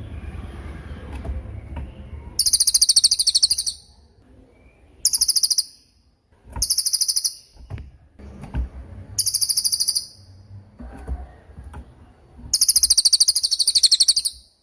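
Cililin bird singing: five bursts of very high, rapid trills, each about a second long, with low background noise in the gaps.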